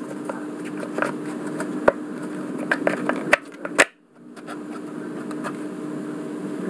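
Sharp plastic clicks and knocks of a cordless-drill battery being handled and slid into a homemade battery adapter, over a steady background hum. The sound drops out briefly about four seconds in.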